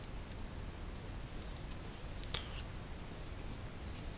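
Irregular, scattered clicks of a computer keyboard and mouse being worked, about a dozen light strokes with one louder click a little past halfway.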